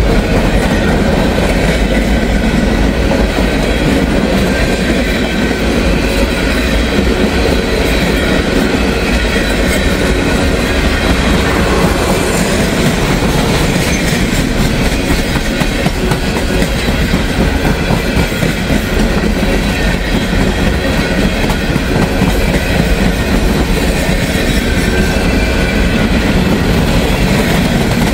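Long freight train rolling past close by: a loud, steady run of wheel-on-rail noise from the passing cars, with no horn.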